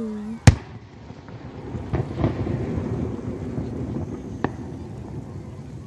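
Aerial fireworks bursting: a sharp, very loud bang about half a second in, then a rolling rumble with scattered crackles from about two seconds in, and another sharp bang near the end.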